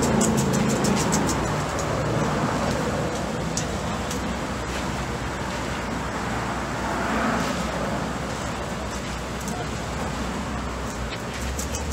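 Road traffic going by on a city street: a steady rush that swells and fades, over a low engine hum. A run of rapid ticking sounds in about the first second and a half, and again near the end.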